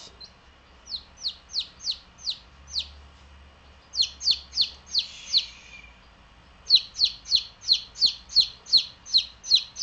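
A baby chick peeping: short, high, falling peeps about three a second, in three runs, the last one longer and louder. The keeper reads this insistent peeping as the chick getting cold.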